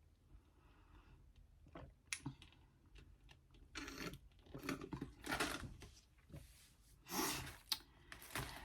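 Soft, intermittent rustling and clicking from handling food and its packaging, with a few louder rustles about four to six seconds in and again around seven seconds.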